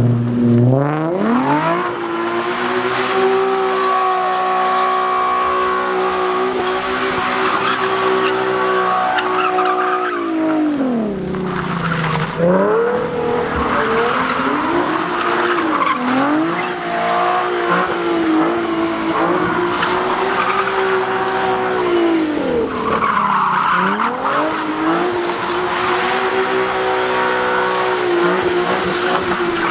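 Car engine revved hard and held at high revs while the tyres spin and squeal. The revs drop and climb back twice, about eleven seconds in and again after about twenty-three seconds.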